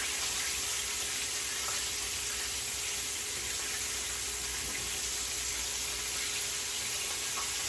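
Chicken legs frying in hot oil in a pan: a steady sizzle.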